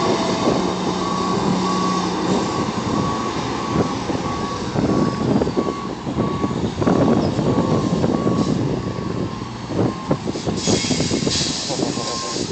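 A semi truck's reversing alarm beeps steadily over the diesel engine's rumble as the tractor and box trailer back up slowly. The beeping stops about halfway through and comes back near the end, and there is a short hiss of air about two seconds before the end.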